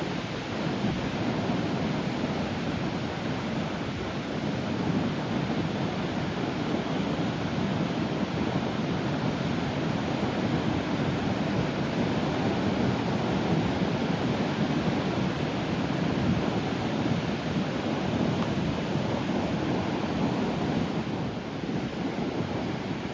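Sea waves breaking gently on the shore: a continuous wash of surf that swells a little in the middle and eases slightly near the end.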